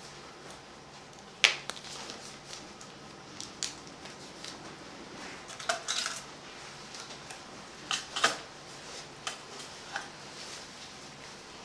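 Metal surgical instruments clinking as they are handled, in sharp single clinks: a loud one about a second and a half in, small clusters around six and eight seconds, and another near ten seconds.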